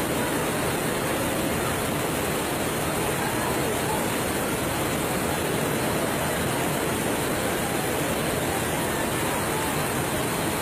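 Muddy floodwater rushing through a street in a steady torrent, a constant noise with no separate knocks or impacts.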